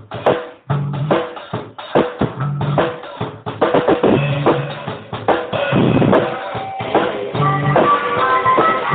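A drum kit playing a beat with bass drum and snare hits. About halfway through, sustained pitched notes join in, from a harmonica.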